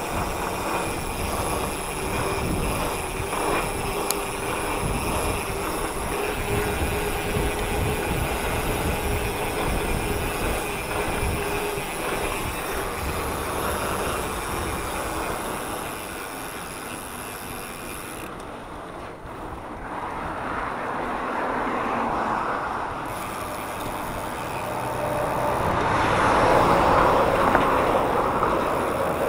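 Riding noise from a mountain bike rolling on asphalt: wind rumbling on the bike-mounted camera's microphone with tyre and road noise. The noise dips briefly past the middle and swells near the end.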